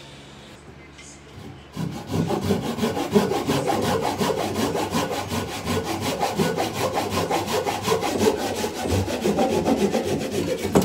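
Hand saw crosscutting a wooden batten in quick, even back-and-forth strokes, starting about two seconds in and stopping abruptly near the end.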